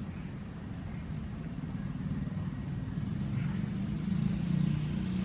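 A motor vehicle's engine running, with a low rumble that grows louder over the second half as it comes closer.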